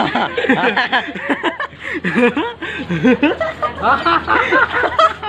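Several young men laughing and chattering over one another, with no clear words.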